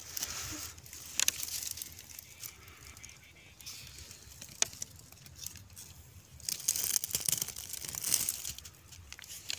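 Dry vine stems and fallen leaves rustling and crackling as they are pushed aside by hand, with a few sharp snaps; the crackling is thickest near the end.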